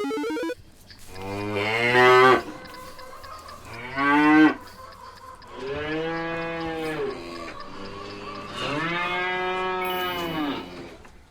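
A cow mooing four times, long drawn-out calls with pauses between them; the second moo is short.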